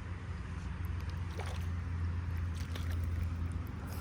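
Faint water sloshing and a few small splashes as a hooked bluegill is reeled in, over a steady low rumble.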